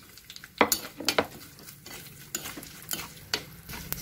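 Coconut slices, curry leaves and fennel seeds frying in coconut oil in a clay pot, sizzling softly while a steel spoon stirs them. The spoon knocks and scrapes against the pot about seven times, loudest about half a second and a second in.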